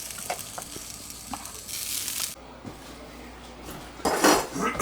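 Chicken wings sizzling on a grill, the sizzle cutting off about two seconds in; near the end, a few loud scrapes and clatters.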